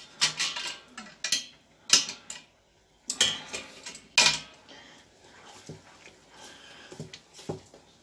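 Metal kitchen utensils clinking and knocking against stainless-steel pots: several sharp clanks in the first half, then softer, scattered taps.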